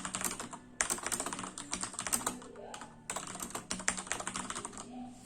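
Mechanical keyboard typed on fast, the keys bottoming out, in two quick runs of clattering keystrokes: one about a second in, another about three seconds in.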